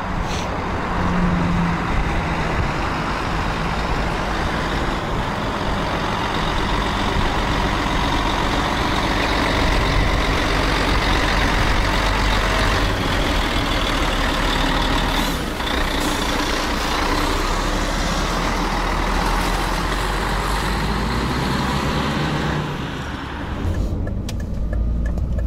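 Volvo FH tractor unit's diesel engine running as the truck pulls away and drives past, with a steady dense noise. Near the end it gives way to road noise inside a car.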